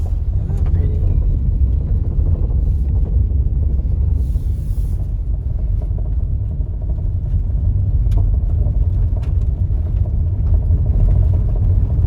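Subaru Forester driving on a gravel road: a steady low rumble of engine and tyres, with scattered small clicks and a brief hiss about four seconds in.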